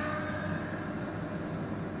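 Electric ducted fans of a radio-controlled Airbus A320 model jet, a steady whine over a rush of air, fading a little as the plane flies away.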